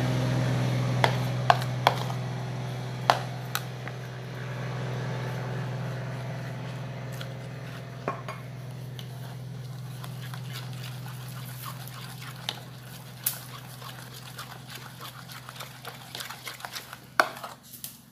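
A spoon stirring thick egg-and-flour frying batter in a bowl, with scattered sharp clicks of the spoon against the bowl, most of them in the first few seconds. Under it a steady low hum, the loudest sound at first, slowly fades away.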